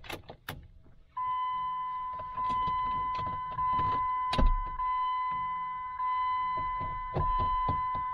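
Dodge Durango's dashboard warning chime ringing over and over, re-struck about every 1.2 seconds, starting about a second in. Clicks and light knocks of hands working in the dash run through it, with one loud knock about midway.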